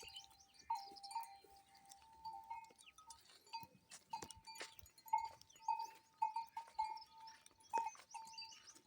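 Livestock neck bells clanking over and over, one ringing note struck again about twice a second, with scattered small clicks and knocks, as goats move about.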